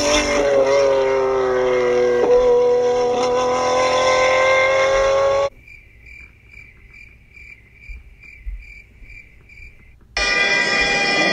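A sports car's engine running hard at high revs, its note dipping and then slowly rising, cut off suddenly about five seconds in. A quiet stretch follows with a faint high chirp about twice a second, and near the end loud street traffic noise starts abruptly.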